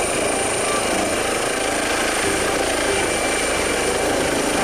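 Air ambulance helicopter lifting off and hovering low, its rotor and turbine noise running steadily with a thin high whine over it.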